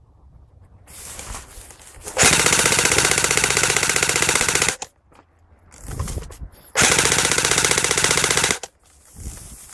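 Airsoft gun firing two long full-auto bursts, a rapid, even rattle of shots: the first starts about two seconds in and lasts about two and a half seconds, the second starts about seven seconds in and lasts nearly two seconds.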